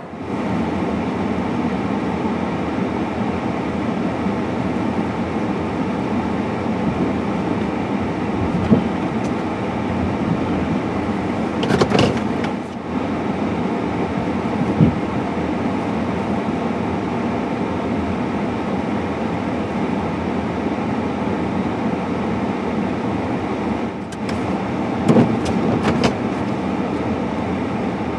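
Steady rumbling noise of a running vehicle, with a brief knock about twelve seconds in and a few more near the end.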